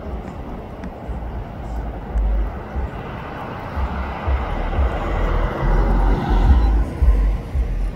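Gusty wind from a rain shower's outflow rushing through trees and buffeting the microphone, swelling to its strongest gust about six seconds in.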